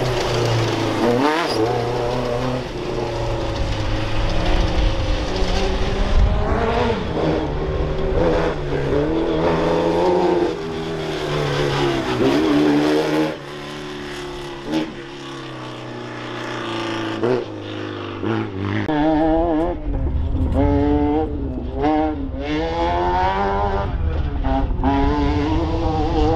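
Class 10 off-road race car engines revving hard, their pitch climbing and dropping repeatedly through gear changes and throttle lifts. There is a quieter spell about halfway through, then the engines rev up and down again.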